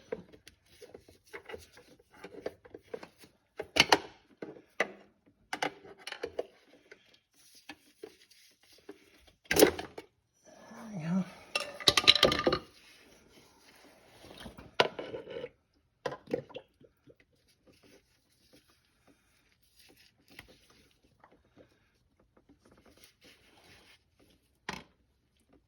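Scattered clinks, knocks and rattles of hand work on a car's underside as a 4T65E automatic transmission's filter is twisted and pulled out, with tools and parts being handled. The knocks come thickest in the first half, go mostly quiet after that, and end with one sharp click.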